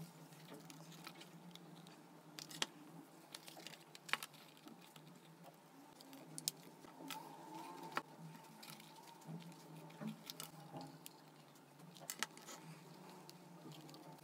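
Light, irregular clicks and taps of wooden popsicle sticks and a hot glue gun being handled and pressed together, over a faint low steady hum.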